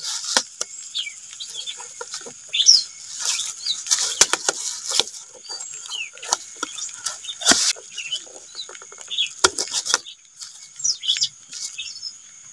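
Thin plastic bag crinkling and rustling in irregular short crackles as it is pulled tight and bound with a rubber band over a container's mouth.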